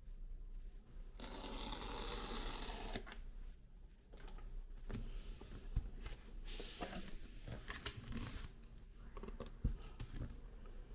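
Unboxing handling noise from the packaging: a tearing, rustling sound for about two seconds starting a second in, then scattered rustles and light clicks with two sharp knocks.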